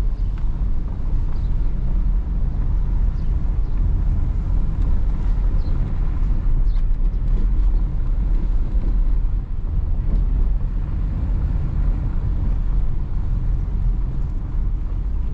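Steady low rumble inside the cabin of a 2022 Hyundai Tucson 1.6 driving slowly over a rough dirt track: tyre and road noise with the engine running underneath, and a few faint ticks from the unpaved surface.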